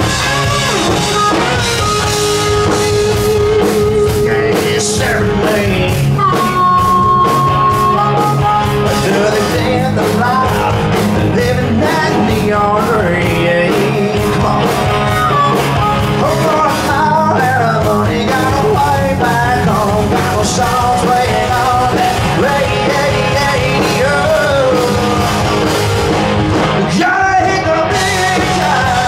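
Live rock band playing an original song: electric guitars, bass and drums, with a wailing lead line of held, bending notes, played on harmonica, over the top.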